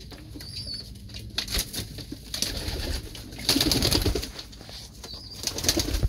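Pigeons in a loft, with a loud burst of wing flapping a little past halfway through.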